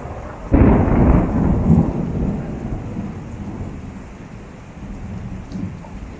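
A sudden loud thunderclap about half a second in, rumbling and fading away over the next few seconds, over steady rain.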